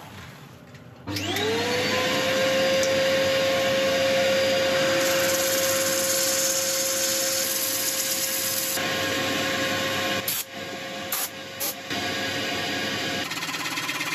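A dust-extraction vacuum motor switches on about a second in, its whine rising quickly and settling to a steady pitch over a rushing hiss. The whine cuts out near the end.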